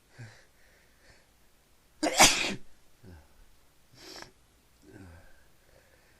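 A man sneezes once, loudly, about two seconds in, a sneeze brought on by pepper in his nose. A few quieter breaths follow.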